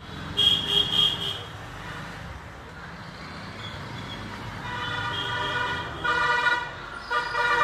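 Vehicle horns honking over road traffic: a quick run of short beeps in the first second and a half, then longer blasts past halfway and again near the end.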